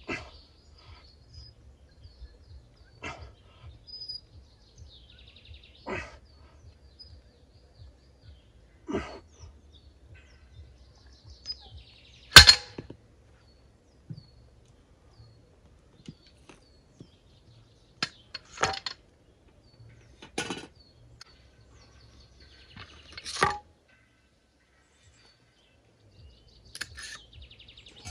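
A series of sharp knocks, about every three seconds at first and then more irregular, the loudest a little past twelve seconds in, with birds chirping faintly.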